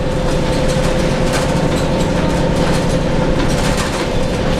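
Inside a Neoplan AN440 transit bus while it drives: its Cummins ISM diesel running with a deep, bassy rumble, a steady whine, and scattered rattles from the body and fittings.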